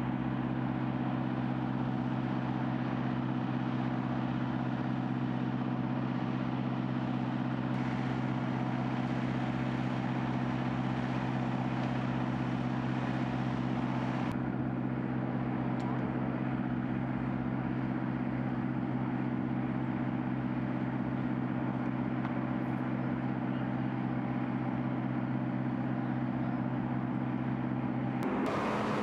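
A motor running steadily at one constant pitch, a continuous even hum. About a second before the end it stops and a louder, rougher noise takes over.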